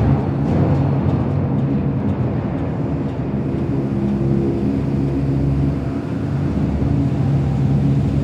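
AT-AT walker idle sound effect: a steady low mechanical hum with several held low tones over a rumbling drone.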